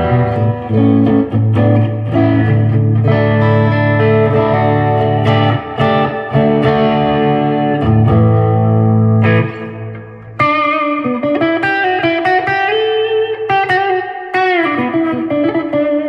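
Squier Classic Vibe 70s Jaguar electric guitar played through an amp modeller: ringing chords over low bass notes, then after a short break about ten seconds in, higher single-note lead lines with string bends.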